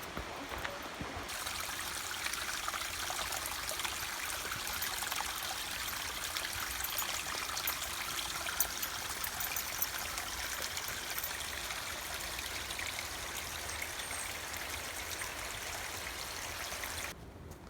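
Rushing stream water, a steady hiss of running water that comes in about a second in and cuts off suddenly near the end.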